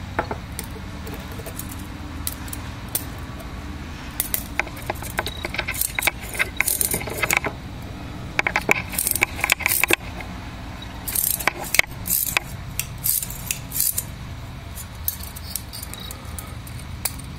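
Steel forceps and wire clicking and scraping against a metal arch bar as the wire is twisted tight around a plaster jaw model: irregular small metallic clinks, coming thick and fast through the middle.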